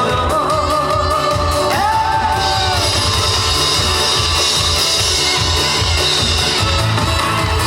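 Live music with a singer: a voice holds long, wavering notes for about the first three seconds, then the band carries on without voice over a steady beat.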